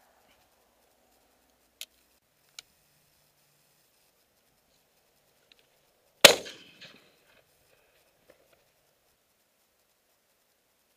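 A single shotgun shot about six seconds in, its sound dying away over about half a second. Two faint clicks come a few seconds before it.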